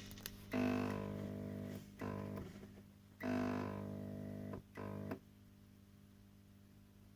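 20 W T8 fluorescent tube failing at end of life: the lamp and its ballast buzz in several loud surges, with sharp clicks from the glow starter as the tube flickers and restrikes. A little past five seconds the buzz drops to a faint steady hum.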